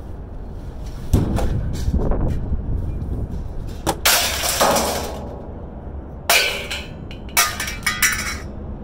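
Scrap metal being handled and thrown, a series of clanks and crashes. There are heavy thuds about a second and two seconds in, the loudest crash with a ringing tail about four seconds in, and more sharp clanks near the end.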